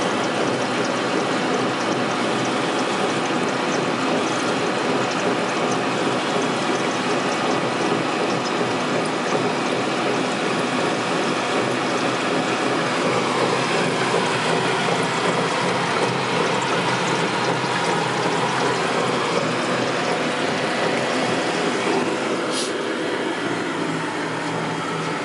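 Agfa Azura C95 plate processor running on a test cycle: a steady mechanical whirr of its drive rollers and brushes, with a wash of circulating liquid, and one sharp click near the end.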